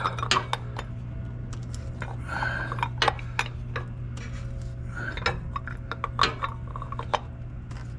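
Scattered metal clicks and clinks of a large wrench against a cartridge oil filter housing cap as the cap is worked loose and unscrewed, over a steady low hum.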